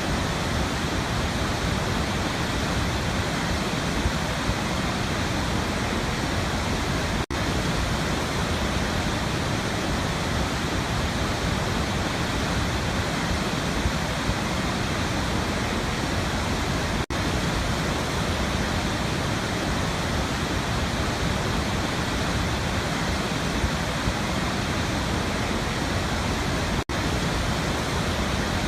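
Waterfall: a steady, dense rush of falling water, broken by three very brief dropouts about ten seconds apart.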